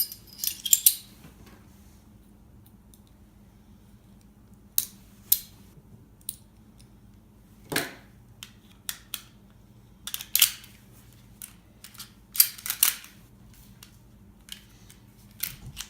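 Handgun parts being fitted back together by hand: scattered sharp clicks and clacks of slide, barrel, recoil spring and frame going into place, in a few clusters with quiet gaps between.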